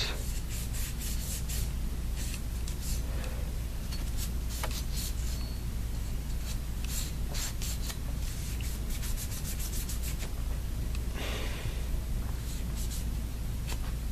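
Cloth cleaning patch rubbed over a metal AR-15 part in many quick scuffing strokes, wiping off black carbon fouling. A steady low hum runs underneath.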